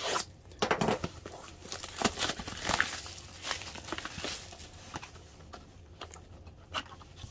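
Plastic shrink-wrap on a trading-card hobby box being slit with a utility knife and torn off, crinkling and crackling in quick irregular strokes. It is loudest in the first few seconds and dies down to lighter handling of the cardboard box.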